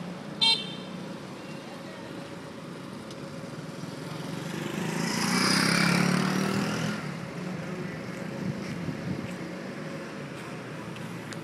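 City street traffic: a steady low engine hum, a short horn beep about half a second in, and a vehicle passing by that swells louder for a couple of seconds around the middle.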